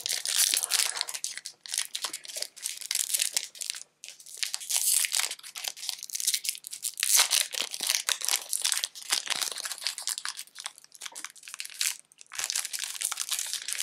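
Trading-card booster pack's foil wrapper crinkling and tearing as it is opened, in bursts with short pauses.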